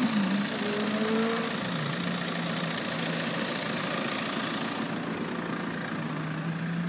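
A vehicle engine idling: a steady low hum whose pitch dips slightly about two seconds in and then holds, over a steady rush of noise.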